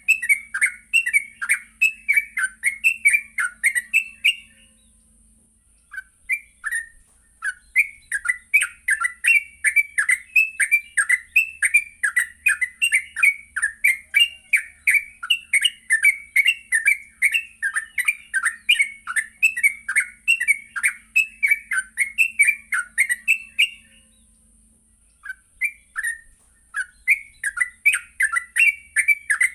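Sooty-headed bulbul (trucuk) singing in a rapid, continuous run of short chirping notes, about three or four a second. The run breaks off briefly twice.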